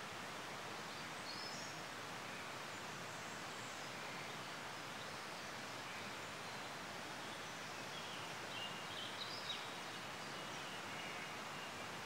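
Steady hiss of outdoor background noise, with a few faint, high bird calls about a second and a half in and again around nine seconds in.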